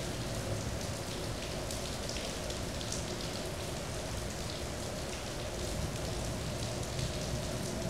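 Steady rain falling, with scattered sharper drop hits.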